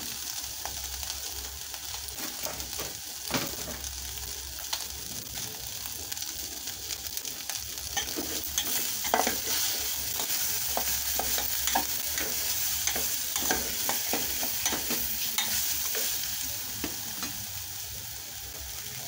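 Beef sizzling as it fries in a stainless steel pot, with a metal spoon scraping and knocking against the pot as the meat is stirred; the scraping is busiest around the middle.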